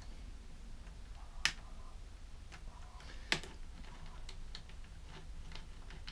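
Small metal clicks and ticks of a socket on an extension, turned by hand to loosen a corroded bolt on a two-stroke generator's carburettor plate. Two sharper clicks come about two seconds apart.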